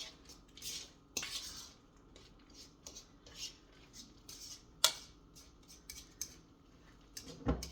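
A utensil stirring a thick mashed-banana mixture with berries and nuts in a mixing bowl: irregular scrapes and light clinks against the bowl, with one sharp knock a little before five seconds in.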